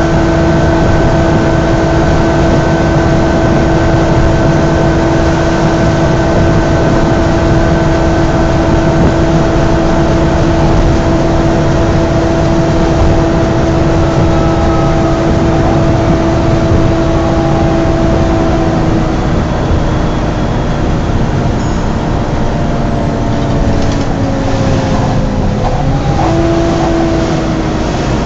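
Cooling fan of a Volvo B9TL Wright Eclipse Gemini double-decker bus whining at a steady pitch over engine and road noise inside the bus. About two-thirds of the way through, the whine slides down in pitch and wavers, then settles lower.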